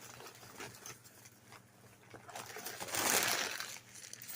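Packing paper rustling and crinkling as it is handled, with a louder rustle about three seconds in and a few small taps and clicks.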